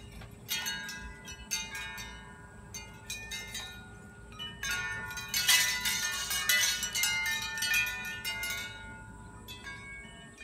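Metal tubular wind chime ringing in the breeze, with clusters of overlapping bell-like tones struck at irregular moments. It is busiest and loudest about halfway through, then thins to a few strikes.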